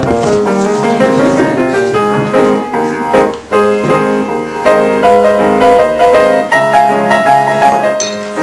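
Piano music playing a quick run of notes, with a brief break about three and a half seconds in.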